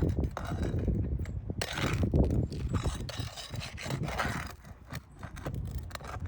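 Irregular scraping and rubbing against brittle asphalt roof shingles as they are worked loose to get at and pull their nails.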